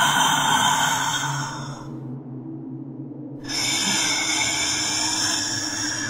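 Eerie, processed ghostly female vocals over a low drone: a breathy, layered wash that dies down about two seconds in and swells back abruptly about a second and a half later.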